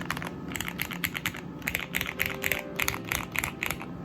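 Typing on a custom 60% mechanical keyboard with Gateron CJ linear switches and PBT keycaps, its case packed with dampening fill: a fast, uneven run of keystrokes. The strokes sound quiet and solid, because the fill makes the board heavy.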